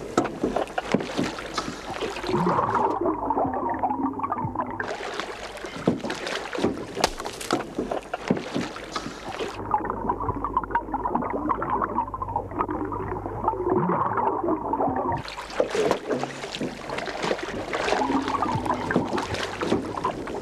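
Water splashing and churning at the surface beside a small boat, with two longer muffled stretches in which the high hiss of the splashing drops away and a low steady hum remains.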